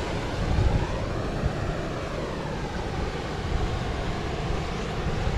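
Wind buffeting the microphone in an uneven low rumble, over a steady rushing hiss of water spilling over a weir.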